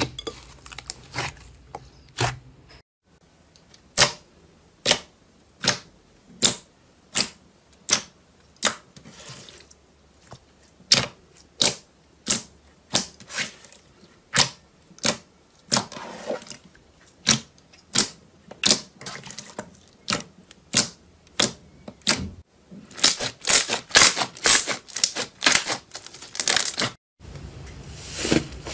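Hands pressing and squeezing glossy slime, trapped air popping out in a steady run of sharp clicks a little under a second apart, then a quick crackling flurry near the end.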